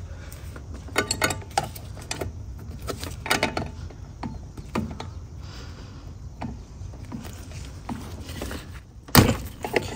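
Irregular metal clicks and clinks of a wrench and hands working the brake line flare nuts loose on a brake master cylinder, with one louder knock near the end.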